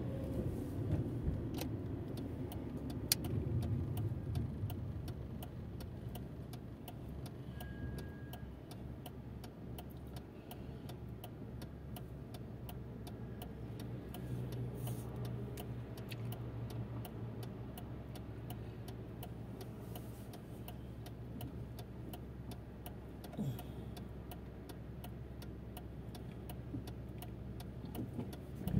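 Car engine running at low speed, heard from inside the cabin, with a regular light ticking from the turn-signal indicator.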